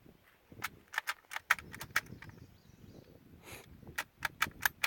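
A string of short, sharp clicks and knocks at uneven spacing, coming faster, about five a second, near the end.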